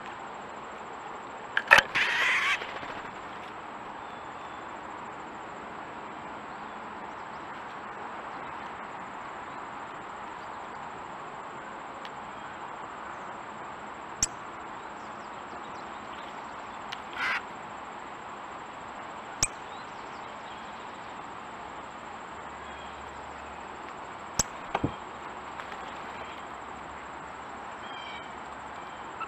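A single harsh bird call about two seconds in, then scattered sharp clicks of beaks striking sunflower hearts on a wooden stump, over a steady background hiss.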